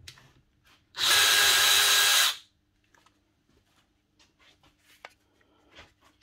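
DeWalt cordless drill's motor and gearbox running in one loud burst of about a second and a half, spinning the spindle to unscrew a chuck that has been cut through to its threads. Light handling clicks follow.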